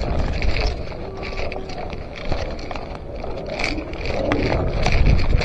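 Rustling and scuffing of the wearer's movement on a body-worn action camera's microphone, over a low wind rumble, with scattered small clicks or snaps.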